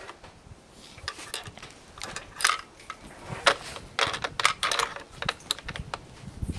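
A run of irregular clicks, clacks and light scrapes from gear being handled, loudest about two and a half, three and a half and four and a half seconds in.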